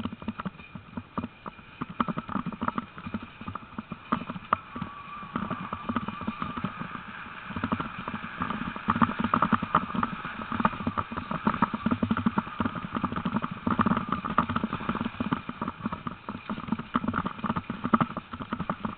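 Dog team running in harness over grass and dirt: a quick, continuous patter and clatter of many paws and gear, getting louder about halfway through.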